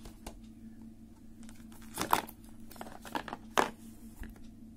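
Cardboard and paper packaging of a smartphone box rustling and scraping as the phone is pulled out of its tray by hand, in two short bursts of crackling about two seconds in and again around three to three and a half seconds in. A steady low hum runs underneath.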